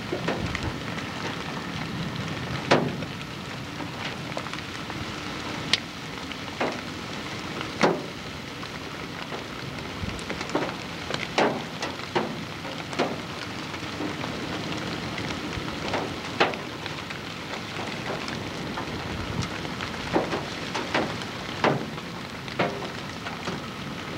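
Steady hiss of gusty storm wind on a camcorder microphone, broken by irregular sharp taps and pops about once or twice a second.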